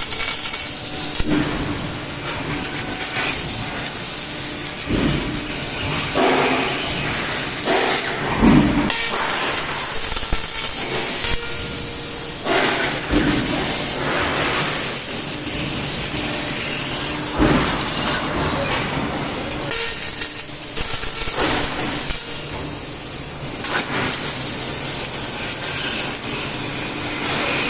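12 kW fiber laser cutting 20 mm plate: a steady, loud hiss of the assist-gas jet and spraying molten metal, shifting in strength every few seconds as the cut goes on.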